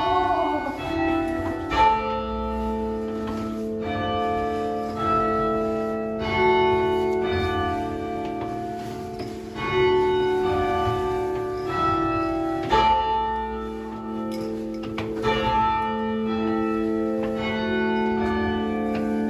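Church bells of St Martin-in-the-Fields ringing, many overlapping bell tones, with fresh strikes every couple of seconds and each note ringing on.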